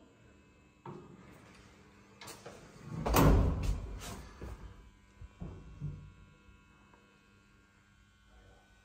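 Doors of a 1990s ZREMB passenger lift closing: a rising whir about a second in, then the loudest part, a clatter of several knocks as the doors shut around three to four seconds in, followed by two lighter knocks.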